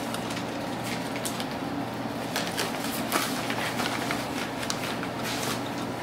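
Faint metallic clicks and scrapes of a wrench turning out the brass burner orifice of a propane furnace's cast-iron burner, scattered and irregular, over a steady low hum.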